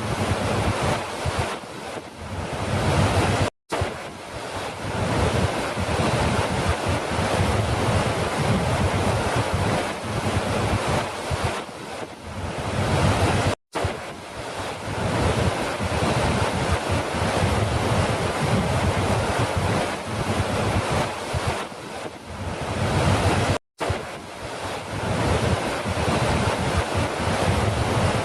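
Falling water rushing continuously, an even hiss with no distinct splashes. It cuts out for a split second three times, about ten seconds apart, where a recorded loop restarts.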